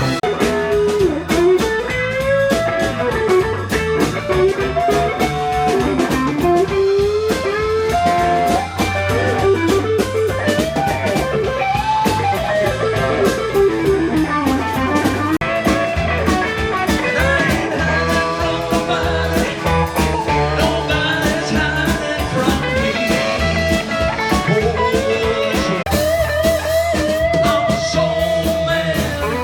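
Live band playing blues-rock, a lead instrument soloing in sliding, bending notes over bass and a steady drum beat.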